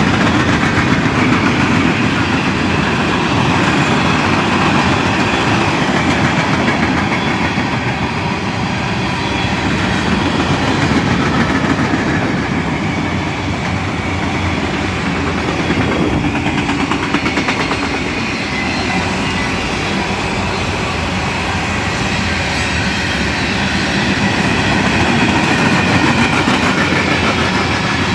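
Autorack freight train rolling past at speed: a steady, loud rumble and clatter of the rail cars' wheels on the track.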